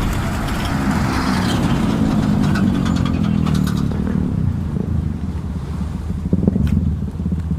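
Suzuki Gixxer SF 250's single-cylinder engine running through a full-system Yoshimura exhaust. It cuts in abruptly, holds a steady low drone, eases slightly midway and builds again near the end.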